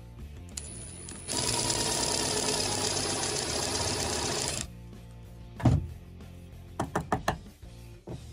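Cordless drill driver with a twist bit boring through a plastic camera mount into a wood block. It starts slowly about half a second in, runs at full speed for about three seconds, then stops. A single knock and a quick run of light clicks follow as the drilled part is handled.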